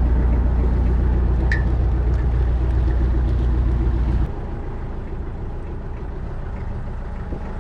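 Motorboat engine running steadily with a deep, even hum. About four seconds in, the low hum drops away abruptly and the engine noise goes on quieter and thinner.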